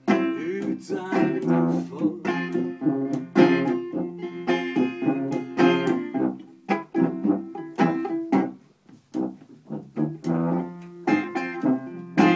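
Banjo strumming quick, ringing chords over held tuba notes: a live instrumental passage with no singing.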